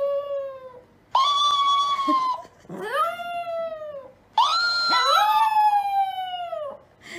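Chihuahua howling: four long howls in a row, each rising in pitch and then sliding slowly down.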